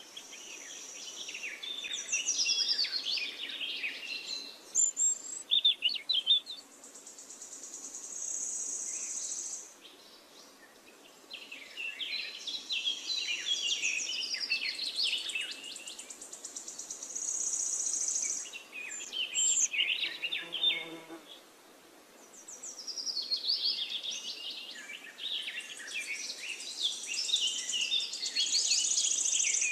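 Birds chirping and twittering in quick phrases, over a high, steady, trilling buzz. It comes in three long spells with short lulls between.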